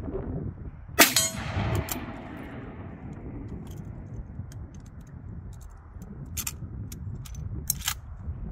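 A single rifle shot about a second in, followed by the steel target ringing for about a second after the hit. A few smaller sharp clicks come later, twice near the end.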